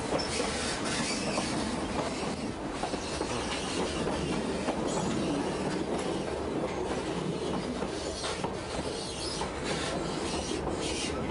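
White Pass & Yukon Route narrow-gauge passenger train running, heard from an open car platform: a steady rumble and rattle of the wheels on the rails.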